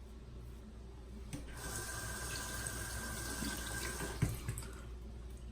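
Water running from a tap into a sink for about two and a half seconds, starting about a second and a half in, then shut off, with a few small knocks near the end.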